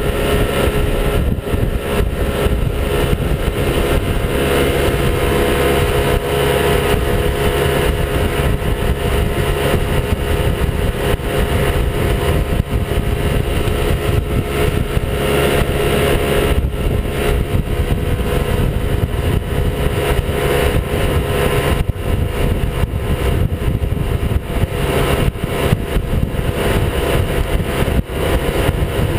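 Evinrude outboard motor running steadily at towing speed, with water rushing and spraying in the wake close behind the boat.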